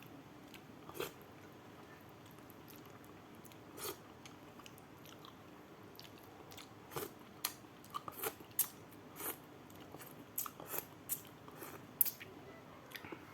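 Close-up mukbang eating sounds: a person chewing a mouthful of rice with sambal, with scattered short wet mouth clicks and smacks that come more often in the second half.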